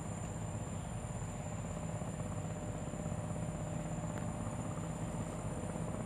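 A steady low mechanical hum, like an engine running continuously, with a steady high-pitched whine above it.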